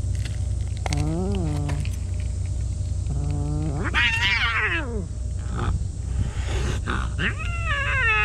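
Two stray domestic cats growling and yowling at each other in a fight: a low wavering growl about a second in, a long yowl that rises to a screech as they swat at each other about four seconds in, and another falling yowl near the end. A steady low rumble runs underneath.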